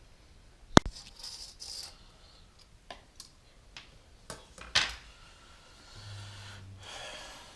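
Handling of computer parts during a PC build: one sharp click about a second in, then scattered light taps and knocks of plastic and metal pieces.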